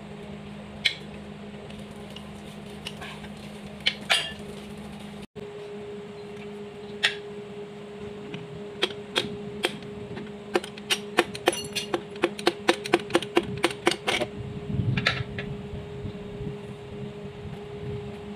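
Light metallic taps and knocks on a bare four-cylinder Komatsu engine block: a few single knocks, then a quick run of about three a second, with a steady hum underneath.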